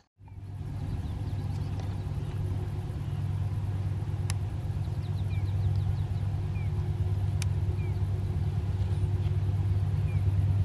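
Steady low drone of EMD SD70LC diesel locomotives on an approaching loaded ore train, slowly growing louder. In the second half a bird gives a short falling chirp about once a second, and there are two sharp clicks.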